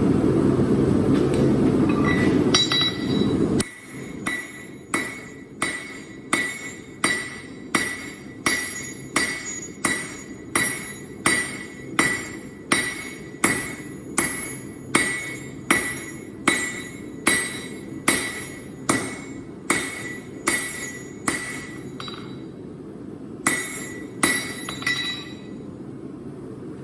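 A low roar cuts off about three and a half seconds in. Then a hand hammer strikes steel on an anvil at a steady pace, roughly one blow every 0.8 seconds, each blow ringing. After a short pause near the end come three more blows.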